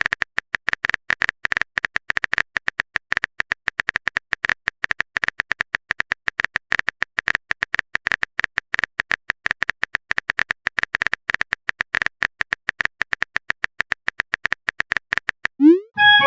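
Keyboard typing sound effect: quick, irregular clicks, several a second, that stop near the end. A short rising swoop and a brief chime of a few notes follow, like a message-notification sound.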